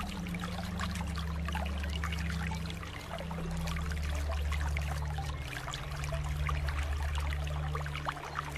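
Aquarium water bubbling and trickling in a constant stream of small irregular pops. Underneath runs a low steady hum that shifts pitch a few times.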